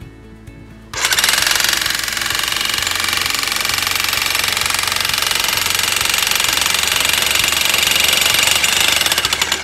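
Electric jackhammer with a pile-driving dolly hammering a steel pile into the ground. It starts about a second in with rapid, steady blows and eases off near the end.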